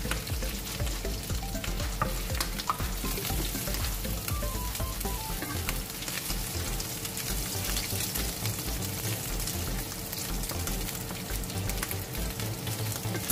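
Browned pork belly pieces sizzling in hot olive oil in a nonstick frying pan, stirred with a slotted wooden spatula that gives light clicks against the pan.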